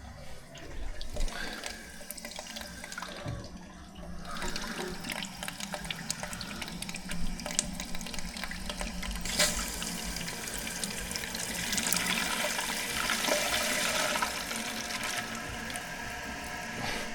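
Water running into a toilet tank as the supply is opened slowly: a hissing, splashing rush that grows louder from about four seconds in.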